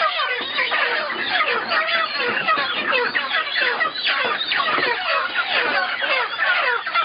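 A crowd of broiler chickens calling in distress while being caught and packed into wire transport crates. Many short cries overlap into one dense, unbroken din.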